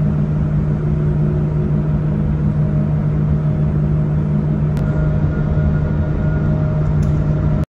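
Car ferry's engines droning steadily, heard from its enclosed car deck, a low hum with a few fainter steady tones above it. It starts suddenly and cuts off suddenly near the end.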